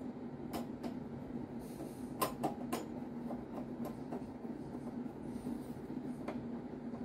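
Screwdriver turning a screw in the metal case of a Cisco Catalyst 2980G-A switch: a few sharp metallic clicks and ticks, bunched in the first three seconds with one more near the end, over a steady low hum.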